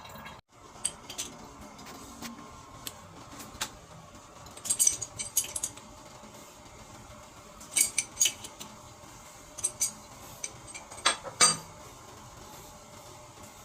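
Hard metal clinks and clicks in short, irregular clusters, like small metal tools or fittings being handled and knocked together.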